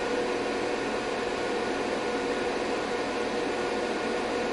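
Steady whir of cooling fans in bench test equipment: an even hiss with a few faint steady hum tones.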